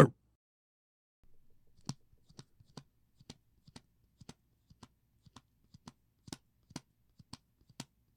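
Homemade Foley sound: a steady series of short, light taps or clicks, about two a second, starting about a second in, some louder than others.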